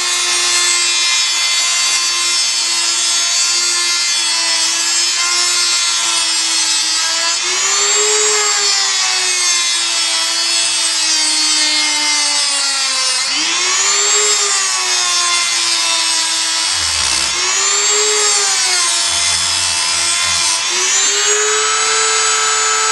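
Handheld rotary tool (an imitation Dremel) whining steadily as it cuts away a hump on an RC truck's bumper mount. Its pitch sags and recovers several times as the bit bites in under load, then steadies higher near the end.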